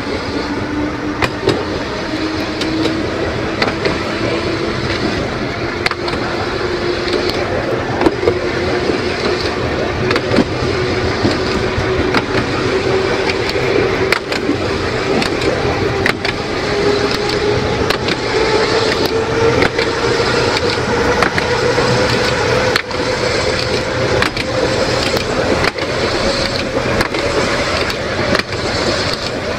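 Electric tramcar on a 2 ft 9 in narrow-gauge line running along the track, its motor whine rising slowly and steadily in pitch as it gathers speed. Over a steady rolling rumble come scattered clicks and knocks from the wheels on the rails.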